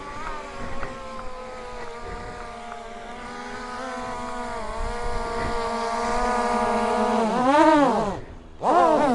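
Husqvarna 701 supermoto's single-cylinder engine pulling steadily under throttle, its pitch climbing slowly. Near the end the revs rise and fall sharply twice, with a brief break between.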